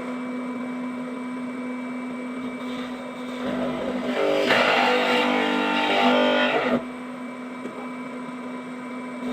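Electric power tool motor switching on and running at a steady high speed. From about three and a half seconds in to about seven seconds it gets louder and rougher as it cuts into the wood for the lock mortise, then runs free again.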